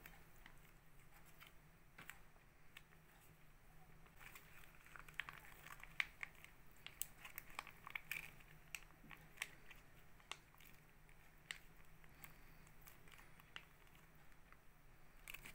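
Faint crinkling and crackling of a foil packet being squeezed and peeled back as thick jackfruit paste is pressed out of it, in scattered small clicks that are busiest in the middle.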